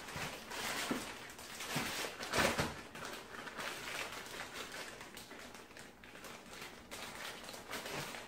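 Plastic zip-top bag packed with vegetables crinkling and rustling as it is handled and pressed shut, in irregular bursts that are loudest about two and a half seconds in.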